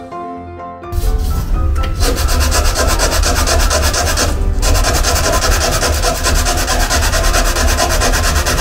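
Hand sanding of a van's painted steel door pillar with a sanding sponge: loud rapid back-and-forth scrubbing strokes that start about a second in, with a brief pause midway. Background music plays alone at the start and continues faintly under the sanding.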